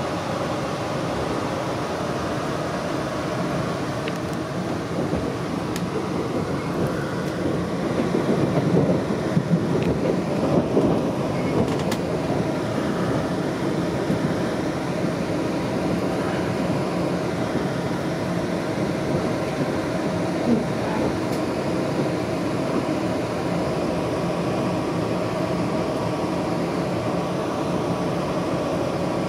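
Steady rumble and rail noise inside the passenger car of an electric express train pulling into a station. It grows louder for a few seconds about a third of the way through.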